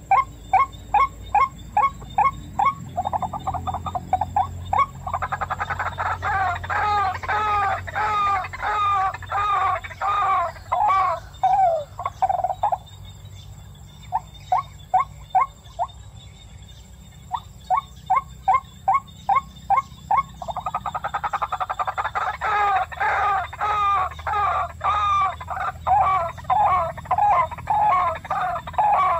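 Rail calls repeated in bouts: a steady series of short notes, about four a second, breaks into a faster run of rising-and-falling notes. After a short pause the pattern comes a second time.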